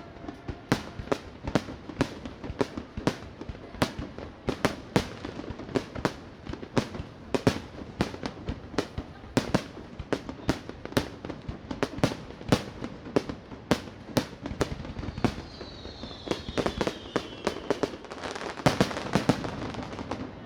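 Fireworks display: a rapid run of shell bursts, about two to three bangs a second. About three-quarters of the way through come a few falling whistles, then a denser, louder burst of crackle near the end.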